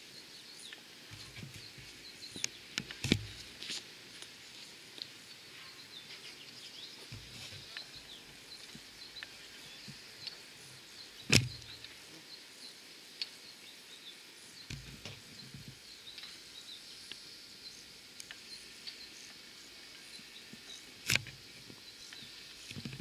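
Birds chirping over quiet outdoor background noise, broken by three sharp knocks, about three seconds in, near the middle and near the end. There is no clear sound of the steam locomotive working.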